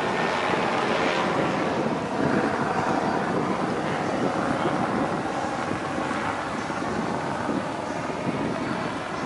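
Steady rushing beach ambience: wind on the microphone mixed with surf.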